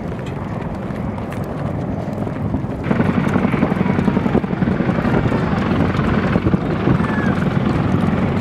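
Helicopter running, its rotor noise and downwash rushing over the microphone as a steady low rumble. It jumps abruptly louder about three seconds in.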